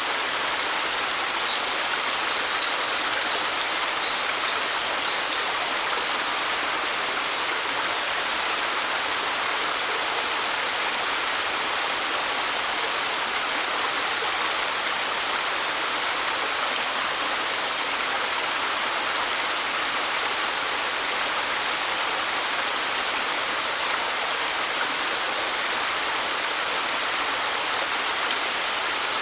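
Small waterfall, about 3 m high, falling steadily into a mountain stream with a constant splashing rush. A few short high chirps sound about two to five seconds in.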